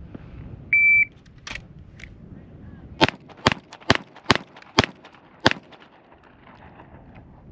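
A shot timer gives a short, high start beep. About two seconds later a Springfield Armory Prodigy pistol fires six shots in about two and a half seconds, a Bill drill. The last shot falls 4.75 seconds after the beep.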